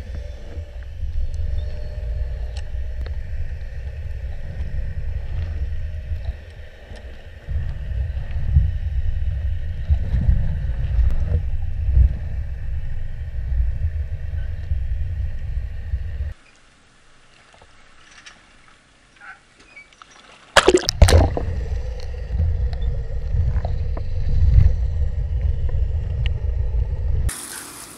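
Low, noisy rumble of canal water churning around a submerged camera. It cuts out suddenly a little past the middle and comes back after a sharp knock.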